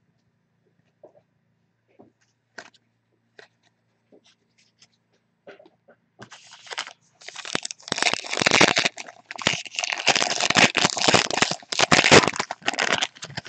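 Foil wrapper of a Panini football card pack crinkling loudly as it is torn open and crumpled by hand, beginning about six seconds in after a few faint clicks of card handling.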